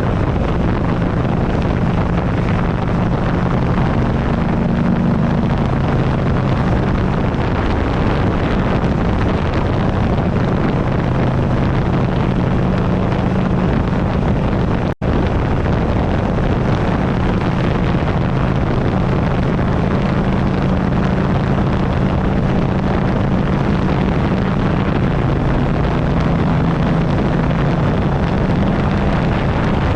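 2008 Buell Ulysses XB12XT's air-cooled V-twin running steadily under way, buried in heavy wind buffeting on the handlebar-mounted camera's microphone. The sound cuts out for an instant about halfway through.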